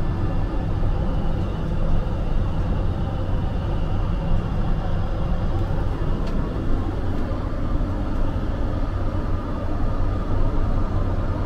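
Steady low rumble of a Boeing 767-300ER in cruise: engine and airflow noise heard inside the aircraft lavatory.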